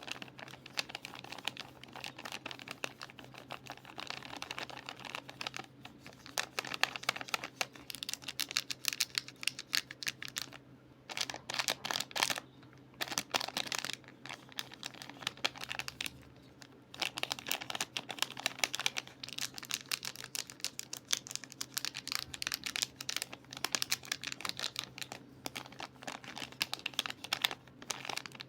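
Soap packaging being unwrapped and handled: rapid crinkling, rustling and clicking of the wrapper and box, broken by a few short pauses.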